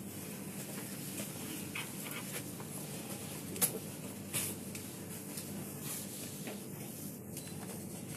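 Steady room tone of a large computer exam hall: a low hum and hiss under scattered faint clicks, the sharpest about three and a half seconds in.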